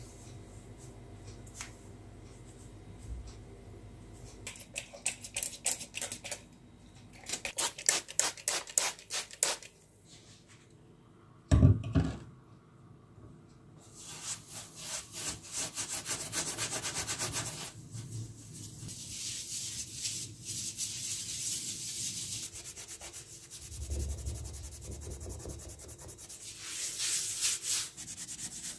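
Kitchen sponge scrubbing a gritty white powder across a glass-ceramic stovetop: quick back-and-forth rubbing strokes, in short runs in the first half and near-continuous from about halfway on. A single sharp knock sounds near the middle.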